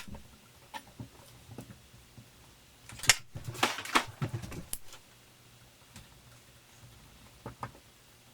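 Kitchen knife and scissors picking and scraping at a wooden block to dig out a lodged pellet: scattered clicks and scrapes, with a busier burst of scraping about three to five seconds in.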